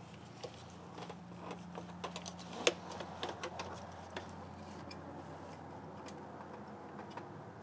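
Light metallic clicks and taps of a spring-wire retaining clip being worked onto the boost pipe's connection at the turbo, with one sharper click about two and a half seconds in.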